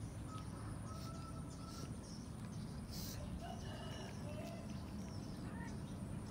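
Faint outdoor ambience: a steady low rumble with a few short, distant bird calls, and one brief hissy burst about three seconds in.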